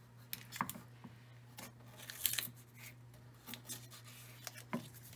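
A knife cutting through a paper-wrapped stick of butter on a wooden cutting board: scattered short taps and scrapes of the blade against the board and the wrapper, the strongest about two seconds in.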